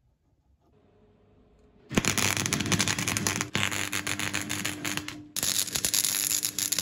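Electric arc welding the handle knob onto the steel shaft: a dense crackle with a steady hum under it, starting about two seconds in, breaking off briefly near the end and starting again.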